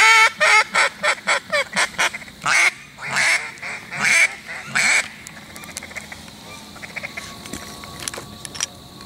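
A loud series of duck quacks, quick short ones first and the last few longer and drawn out, stopping about five seconds in; after that it is quieter, with only faint ticks.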